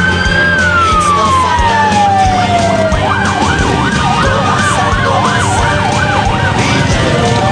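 A siren winding down in one long falling wail, then warbling up and down about twice a second, over the steady rumble of Harley-Davidson V-twin motorcycles riding past in a column.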